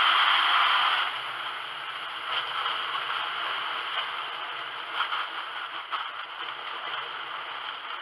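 Dry seed mix pouring from a sack into a container, a rushing hiss of grains. It is loudest in the first second, then runs on as a lighter, steady pour with a few small clicks.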